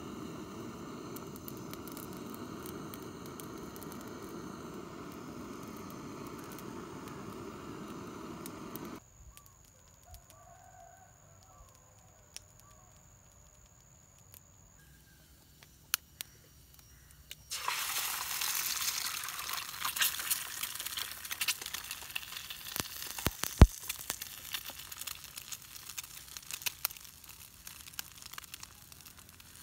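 Eggs sizzling in a small camping pot over a wood fire, with scattered crackles and a sharp tap, fill the second half. The first part is a steady hiss from a gas lighter lighting kindling. It cuts off suddenly to a quiet stretch with a faint high insect tone before the frying starts.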